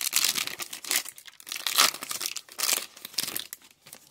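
A Topps Stadium Club Chrome card pack's wrapper is torn open and crinkled in the hands as the cards are pulled out: a quick run of sharp crinkling and tearing rustles that dies away in the last half second.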